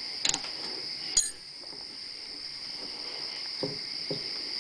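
A steady, high-pitched, insect-like trill, with two sharp clicks in the first second and two soft knocks near the end from a hand handling the milling machine.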